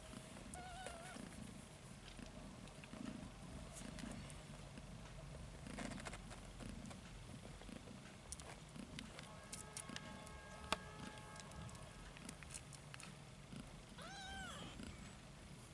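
Mother cat purring steadily in slow pulses while her kittens nurse, with a short high kitten mew near the start and another, rising and falling, near the end. Small clicks are scattered through, one sharper click about two-thirds of the way in.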